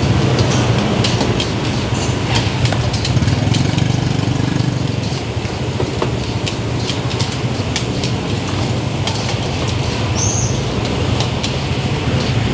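Gas wok burners running with a steady low rumble while oil bubbles in a deep fryer and rice fries in woks, with frequent short clinks and scrapes of metal spatulas and ladles against the pans.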